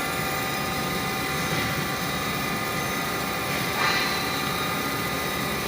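CNC horizontal boring mill running, a steady machine whine made of several held tones over a noisy bed. A brief rising whine about four seconds in.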